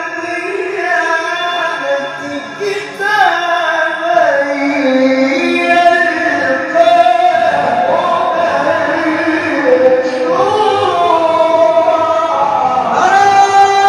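A male qari reciting the Quran in the melodic tilawah style through a microphone, holding long notes that he bends and ornaments.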